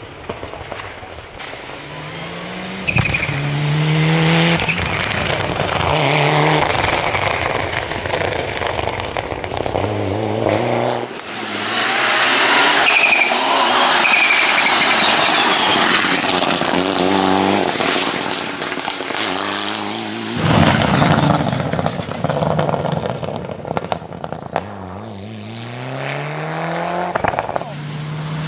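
Mitsubishi Lancer Evo IX Group A rally car's turbocharged four-cylinder at full throttle, its revs climbing and dropping back many times as it shifts up through the gears. A loud rush of noise comes about halfway through as the car goes by close.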